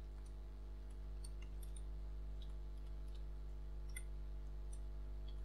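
Faint, irregular clicks of computer keyboard keys being typed, over a steady low hum.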